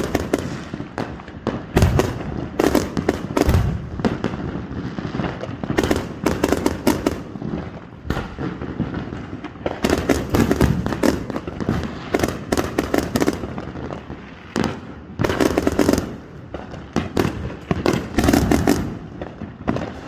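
Fireworks going off in rapid volleys: repeated sharp bangs and crackling, clustered in bursts every second or two with brief lulls between.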